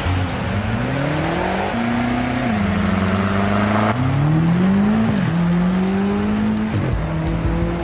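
BMW M5's 4.4-litre twin-turbo V8 accelerating hard: the engine note climbs and drops back several times as it revs and shifts, falling away about seven seconds in. Music plays underneath.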